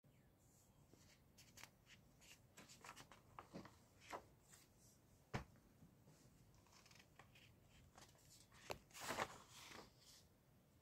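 Sheets of paper in a handmade project booklet being handled and turned: faint rustles and crinkles, a sharp tap about five seconds in, and a louder rustle of a page turning near the end.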